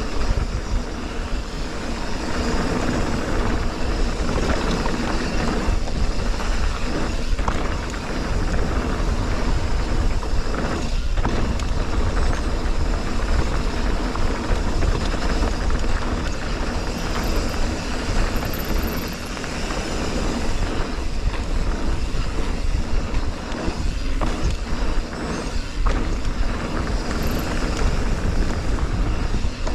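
Mountain bike descending a rough downhill trail: steady wind rush and low rumble over the microphone, with tyre noise and scattered knocks and rattles from the ground.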